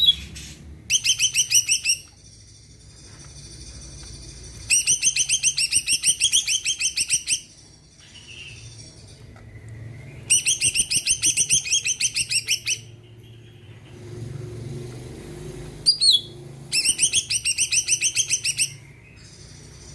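Green leafbird (cucak ijo) singing in loud bursts of fast, evenly repeated high notes, about eight a second. There are four bursts of two to three seconds each, with a brief single call just before the last, over a faint low hum.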